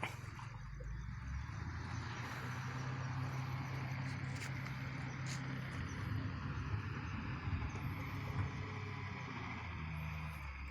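An engine running steadily at a low hum, under an even hiss.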